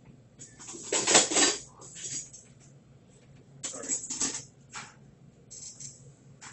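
Skill game machine's sound effects playing in bursts of bright, clattering sound as the gem puzzle pays out: the loudest burst comes about a second in, another about four seconds in and a short one near the end.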